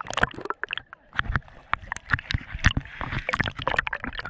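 Sea water sloshing and gurgling around a waterproof action camera as it rides at the surface and dips under, with many irregular slaps and pops of water and bubbles against the housing.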